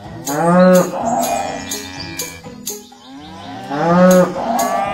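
Two long cow moos, about three and a half seconds apart, over a children's-song music intro with a regular percussion beat.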